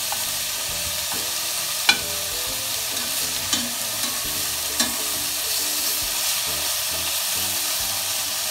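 Beef searing in hot bacon fat in a pot over high heat: a steady sizzle, with three sharp clicks of metal tongs against the pot as the pieces are turned.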